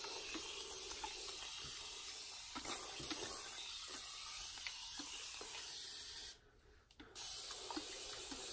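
Steady hiss of a continuous-mist spray bottle wetting hair, with small clicks of hands working the hair; the hiss stops for under a second about six seconds in.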